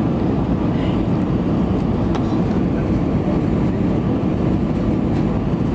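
Steady low rumble of engine and airflow noise inside the cabin of an Airbus A320 on final approach, with its landing gear and flaps extended.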